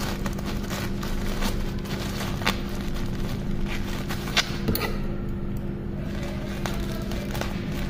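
A plastic courier mailer being handled and picked at, then cut with scissors: scattered crinkles, rustles and sharp clicks, the loudest about two and a half and four and a half seconds in. A steady low hum runs underneath.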